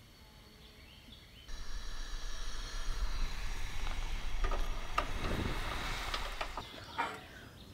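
Butter sizzling in a small square aluminium pan over a portable gas camp stove, with the low rush of the burner flame underneath. It starts abruptly about a second and a half in, with a few light clicks of the pan near the end.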